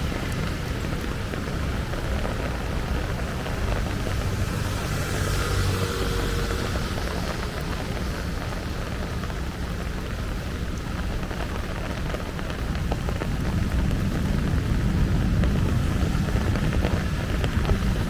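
Heavy rain falling steadily, with a low rumble underneath that grows louder in the last few seconds.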